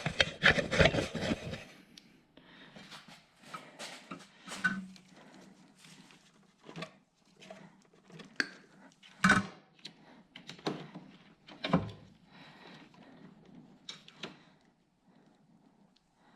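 Hands working on ATV wiring with tools: scattered light clicks, taps and rustling, with a few sharper clicks about nine and twelve seconds in.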